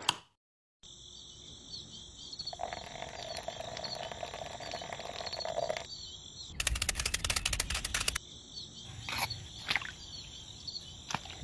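Steady outdoor chirping of birds and insects, broken about two-thirds through by a second and a half of rapid clicking from the gears of a small handmade toy cement mixer being hand-cranked, with a few single clicks after.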